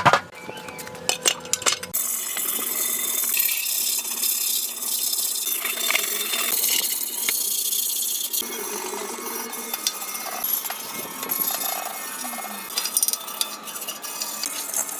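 Metal parts clinking, then a steady scraping hiss of metal being worked with hand tools.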